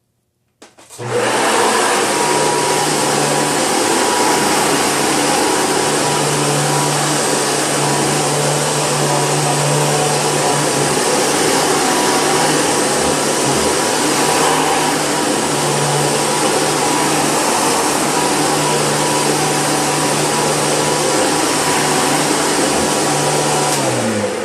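Hoover Breathe Easy upright vacuum cleaner switched on with a click, its motor coming up to speed within a second and running loud and steady with a low hum and a thin whine. Near the end it is switched off and the motor winds down, falling in pitch.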